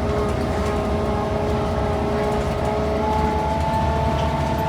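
Gearbox of the old gas bus M/O 4868 whining as it runs slowly, several steady tones over a rumbling drive, with a higher whine coming in about three seconds in.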